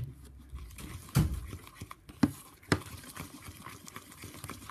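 Silicone spatula stirring wet glue slime in a bowl, with three sharp knocks, the loudest about a second in.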